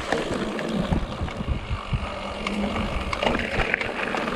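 Mountain bike rolling fast over a rough trail: steady tyre rumble with frequent small knocks and rattles from the bike, and some wind on the microphone.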